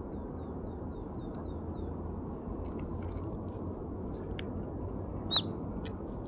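Steady outdoor background rumble with a small bird's quick run of about seven short falling chirps near the start, then a few sharp ticks and one loud short chirp about five seconds in.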